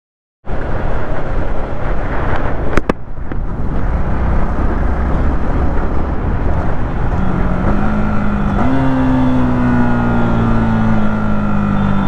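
Yamaha MT-15's 155 cc single-cylinder engine running on the stock exhaust while riding, over a steady rush of wind and road noise. The sound cuts in half a second in; two sharp clicks come near the three-second mark, and later the engine note steps up and then slowly falls as the bike slows.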